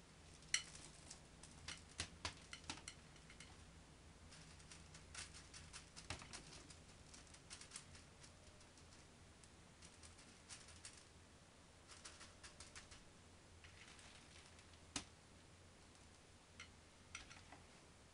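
Faint, scattered clicks and light rattling of LECA clay pebbles knocking against each other and the glass vase as hands press them in around an orchid. A sharper click comes just after the start and another late on.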